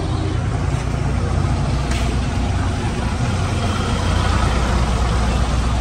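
A bus engine idling with a steady, deep hum close by.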